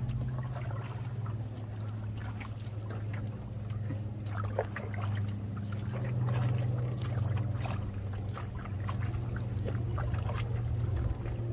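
Canoe paddle strokes splashing and dripping in the lake water, irregular, over a steady low hum.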